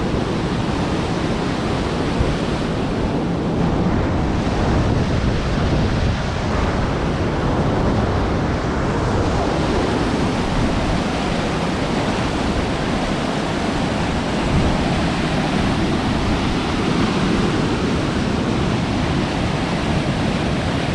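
Waterfall's rushing water: a steady, unbroken wash of noise.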